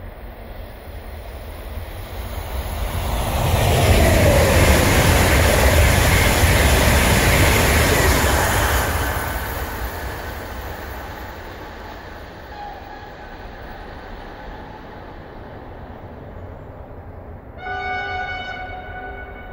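Sapsan high-speed electric train (Siemens Velaro RUS) passing at about 220 km/h: the noise builds, is loudest for about four seconds, then fades as it recedes. Near the end a train horn sounds once for about a second and a half.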